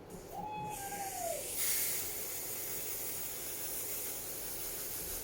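Aerosol spray can hissing in a long steady spray as a layer of wig adhesive spray is applied, louder from about a second and a half in.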